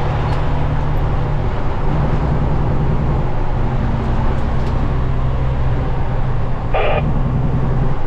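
Car engine and road noise heard from inside the cabin while driving, a steady low hum whose pitch shifts about a second and a half in. A brief higher-pitched sound cuts in near the end.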